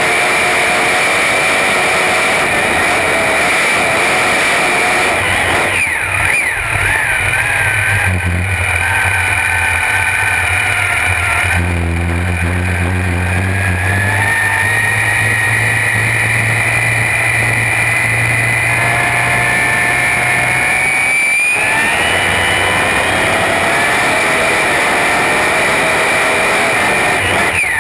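A 1450 hp supercharged alcohol drag-boat engine, heard from the cockpit. It idles with a high steady whine, which the owner puts down to the gear drive or blower. A few seconds in it is throttled up and runs hard under load, the whine rising in pitch with speed, until the throttle is chopped abruptly near the end.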